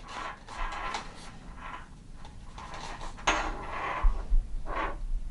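Hands turning a plastic-shelled bicycle helmet: soft rustling and scraping with a few light knocks.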